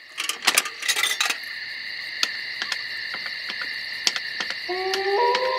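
Opening of a background music track: a high, steady shimmering tone with scattered ticks and clicks, and a lower synth chord sliding in near the end.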